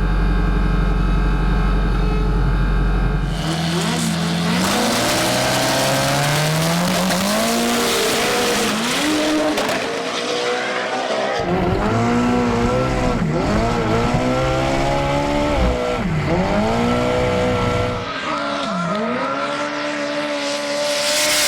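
Drag race engines held at steady revs on the line, then launching about three and a half seconds in and revving up hard through several gear changes down the strip.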